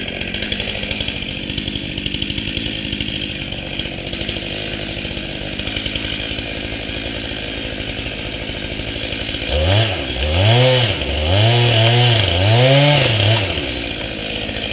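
Chainsaw running steadily while cutting into an alder trunk during felling. About ten seconds in, its pitch begins to swing up and down several times, about once a second.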